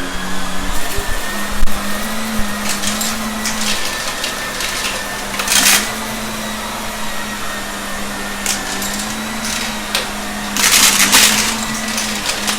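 Shark vacuum cleaner running steadily with a hum and a faint high whine, broken by short bursts of crackling as mess is picked up. The longest burst lasts about a second near the end.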